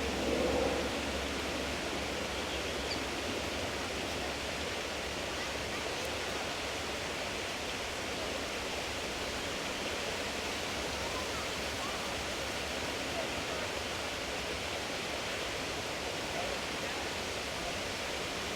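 Steady rushing ambient noise with no distinct events.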